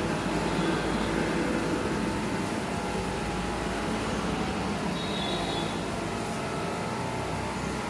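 Motorized backpack sprayer running steadily while pest-control spray is applied, with a brief high whine about five seconds in.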